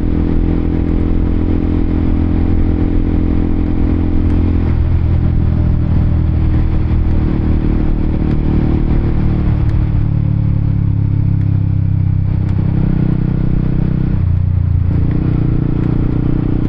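Honda CBR motorcycle engine heard onboard while riding, holding a steady note that shifts in pitch several times as the rider changes speed, over wind and road noise.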